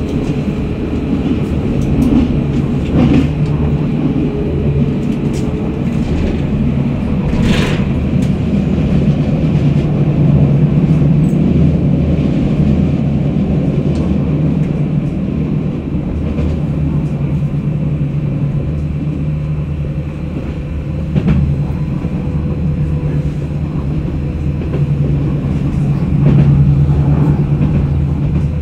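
Tram running along its line, heard from inside the passenger car: a steady low hum and rumble of motors and wheels on the rails, with a few light clicks and one brief sharp sound about seven seconds in.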